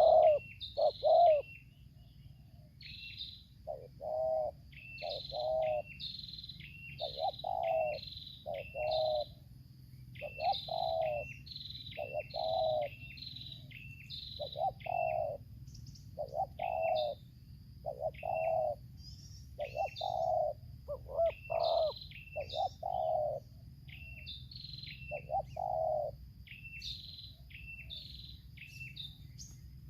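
Spotted doves (tekukur) cooing, a decoy bird and a wild bird calling in repeated short phrases about a second apart. Small birds keep up a steady, high chirping behind the coos.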